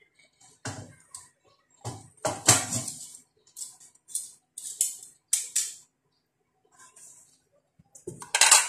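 Stainless steel pot and colander clinking and scraping in a series of irregular clatters as a heavy boiled pork leg is handled, loudest about two and a half seconds in and again near the end.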